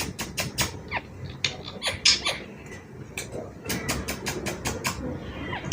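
Indian ringneck parrot chattering in a quick, irregular run of short, sharp squeaks and chirps, several a second, a few dropping in pitch.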